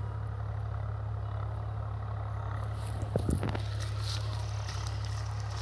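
Steady low mechanical hum, with a short cluster of knocks and rustling about three seconds in.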